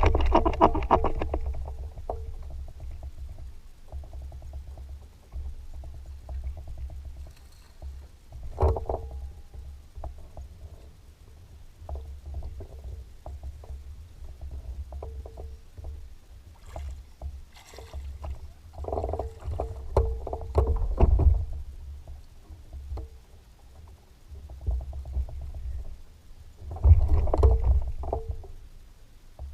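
Boat on open water: a steady low rumble with irregular louder surges and knocks.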